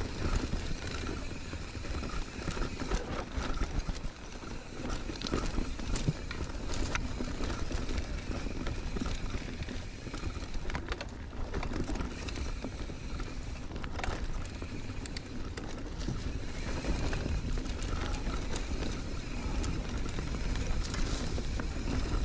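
Mountain bike rolling along dry, leaf-covered dirt singletrack: tyre noise over leaves and dirt with frequent short rattles and knocks from the bike over roots and bumps, over a steady low rumble.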